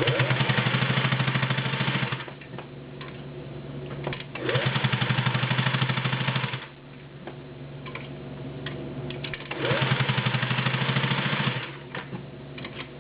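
Singer Touch and Sew 603E all-metal gear-drive sewing machine stitching through five layers of denim in three runs of about two seconds each, the motor rising in pitch as each run starts and the needle ticking rapidly. A few light clicks sound between the runs.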